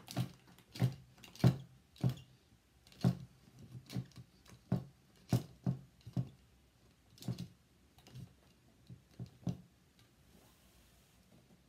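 Irregular sharp clicks and knocks, about two a second, as a small screw is turned by hand into a wooden board and the board shifts against the table; they stop about nine and a half seconds in.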